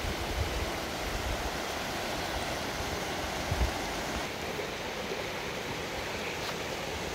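Shallow rocky creek rushing over stones: a steady hiss of flowing water, with one brief low bump about three and a half seconds in.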